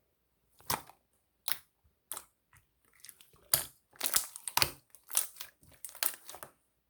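Glitter slime being squished and pressed by hand, giving irregular sticky crackles and pops that come thicker and faster about four seconds in.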